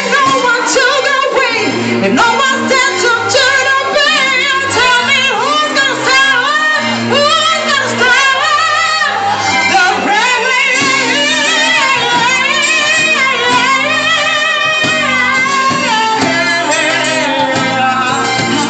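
Female voice singing long, wavering, ornamented lines over band accompaniment.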